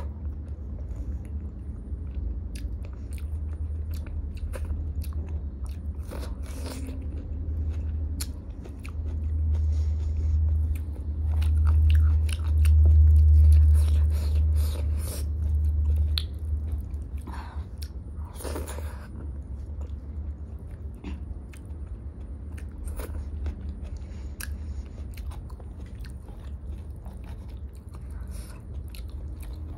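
Close-miked chewing and wet mouth sounds of someone eating dal and rice by hand, with scattered small clicks and smacks. Fingers squish through the rice and lentil dal on the plate between mouthfuls. The sound grows louder for several seconds in the middle.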